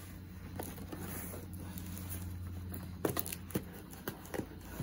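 A cardboard parcel box being handled on a table: soft rustling, then a few sharp knocks and clicks from the box in the last two seconds, over a steady low hum.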